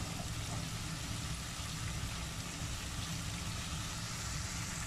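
Quail-egg masala gravy sizzling steadily in the wok: an even hiss with a low rumble underneath, cutting off suddenly near the end.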